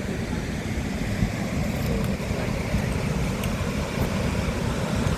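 Goðafoss waterfall rushing: a steady low noise, heaviest in the bass, with no break.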